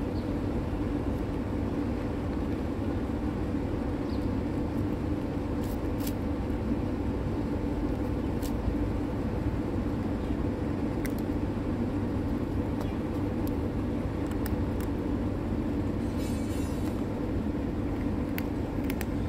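A steady low mechanical hum, the loudest sound throughout, with scattered faint clicks of a cat crunching dry kibble.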